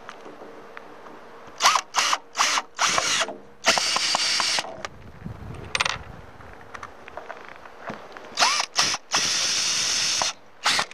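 Cordless drill/driver driving screws to fasten a mounting puck to a boat's bow: a few short spurts of the motor, then a longer steady run, twice.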